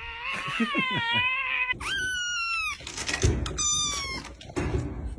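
Cat cries: one long wavering yowl, then a kitten shut in a wire crate gives two high-pitched, screaming meows, crying to be let out.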